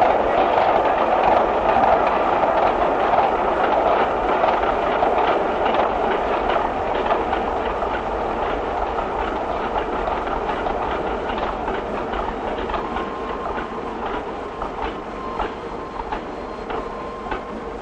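Steam-hauled passenger train rolling past, its wheels clicking over the rail joints, the sound fading steadily as the train draws away.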